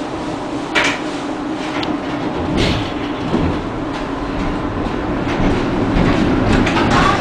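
Tram running, heard from inside the car: a steady rumble of wheels on rail with a few sharp knocks and rattles, growing louder about two and a half seconds in.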